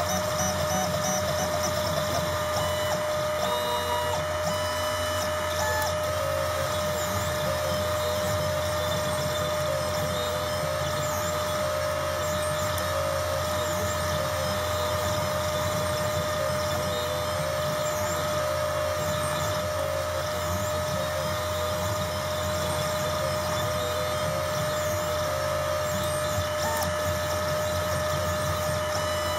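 Desktop three-axis CNC router-engraver running a job: its spindle motor gives a steady whine while the stepper motors whir underneath, their pitch dipping and rising every second or two as the axes speed up and slow down.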